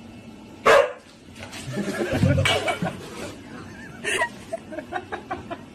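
A husky vocalising: a sharp bark about a second in, then a longer wavering run of grumbling calls, and near the end a falling whine and a string of short yips.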